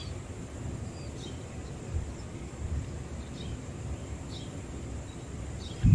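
Quiet background ambience with a low rumble and a few faint, short bird chirps; a loud low thump right at the end.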